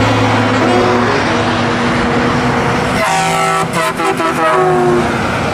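Heavy trucks passing close on a highway, diesel engines and tyres loud, including a Volvo tractor with a refrigerated trailer. About three seconds in, a truck horn sounds several notes at once for about two seconds, dipping slightly in pitch as the truck goes by.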